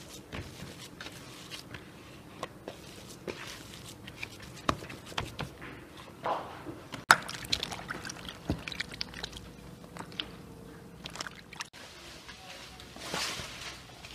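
Kitchen work: scattered, irregular clicks and light knocks of utensils and dishes being handled, with one sharp click about seven seconds in and a couple of brief rustles.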